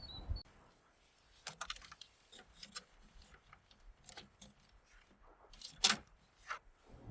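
A few scattered light clicks and knocks, the loudest about six seconds in.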